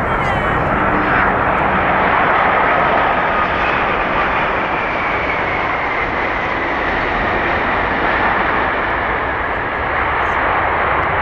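Boeing 787-8 airliner's GEnx jet engines roaring as it touches down and rolls out on the runway. A steady loud roar with a faint whine that slowly falls in pitch.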